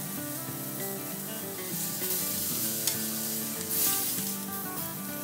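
Marinated chicken breasts sizzling as they sear in a hot cast-iron grill pan, pressed and turned with tongs, with the sizzle flaring up around two seconds in and again near four seconds. Soft background music plays under it.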